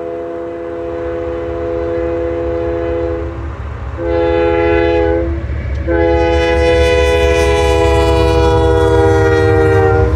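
Union Pacific diesel locomotive's multi-note air horn sounding three blasts: a long one, a short one, then a long one, over the low rumble of the approaching train that grows louder as it nears.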